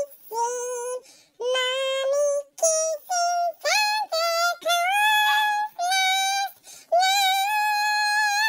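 A dog whining in a string of long, high, wavering notes, each held for up to about a second and a half with short breaks between them, the pitch sliding up a step partway through.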